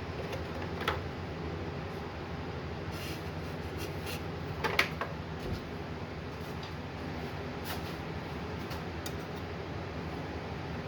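Wood lathe running steadily with a low mechanical hum, with a sharp click about a second in and a louder cluster of clicks near the middle.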